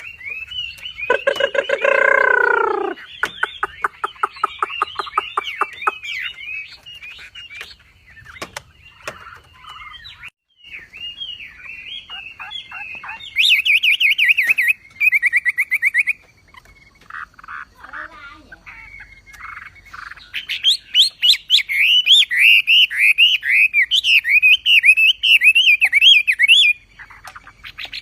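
Wambi bird singing a varied, energetic song: a loud lower call about a second in, then fast repeated notes and trills, and a long run of quick rising-and-falling whistled notes near the end.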